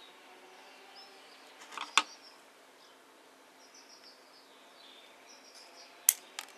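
A sharp snip near the end as scissors cut the spare tail of a plastic cable tie, with a smaller click just after. About two seconds in there is another click, and faint bird chirps sound in the background.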